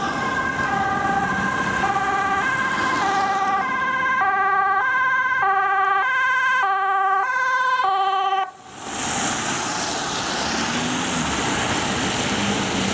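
An emergency vehicle's two-tone siren switches between a high and a low note, each held about half a second. About eight and a half seconds in it cuts off suddenly, and a drone's propellers take over with a steady whirring.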